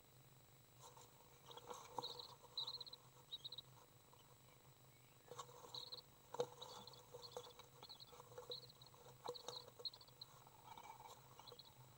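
Faint rustling and tapping of a young common swift flapping its wings and doing push-ups in a nest box, in two spells, the second longer, over a faint steady electrical hum.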